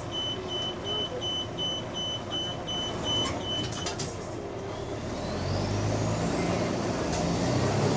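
Bus interior: a warning beeper sounds about three times a second for nearly four seconds, then the bus pulls away, its engine growing louder under a whine that rises steadily in pitch. This bus is the one said to have an exhaust leak.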